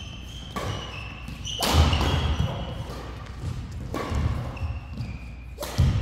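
Doubles badminton rally: rackets strike the shuttlecock with about four sharp, ringing hits, mixed with the low thuds of players' footsteps on the court.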